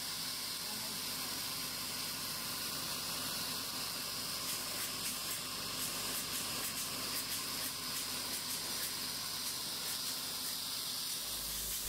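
Polyurea spray gun hissing steadily as it sprays a lining onto the steel tank. The material is applied at about 2200 psi and 165 degrees.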